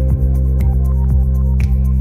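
Background music with a steady beat, sustained synth tones and heavy bass.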